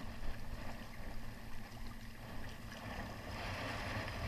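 Gentle sea swell washing against a rocky breakwater, with a low rumble of wind on the microphone; the hiss of water swells slightly about three seconds in.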